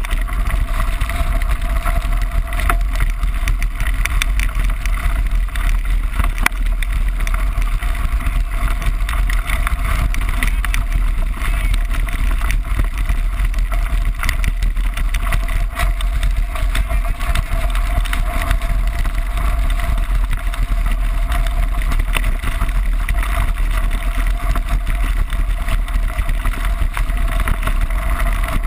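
Wind buffeting the microphone of a bike-mounted camera on a fast mountain-bike descent, a steady loud rumble, with knobby tyres crunching over loose gravel and the bike rattling in constant small clicks.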